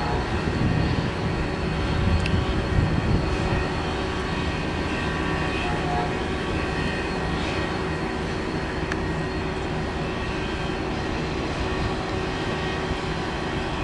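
An Amtrak GE P42DC diesel-electric locomotive passing at the head of its train, its engine giving a steady drone.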